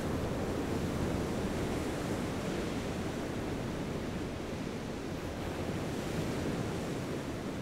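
Steady rush of ocean surf.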